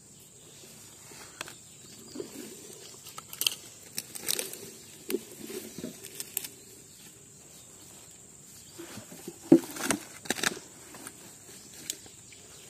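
Steady high-pitched drone of insects, with scattered soft rustles and clicks of leaves and handling near the microphone, the loudest about two-thirds of the way through.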